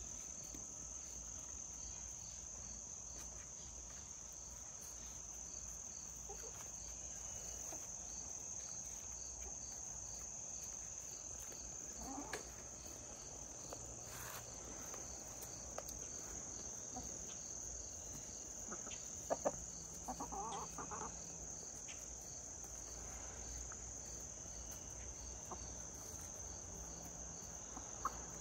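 Crickets chirping steadily, with a few short clucks from hens pecking in the grass, about twelve seconds in and again around twenty seconds in.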